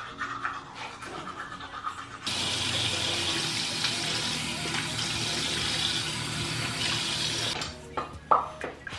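Bathroom sink tap running in a steady stream for about five seconds, starting about two seconds in and shutting off near the end, as a mouth is rinsed after toothbrushing. Before the water there is light toothbrush scrubbing, and near the end a brief sharp sound.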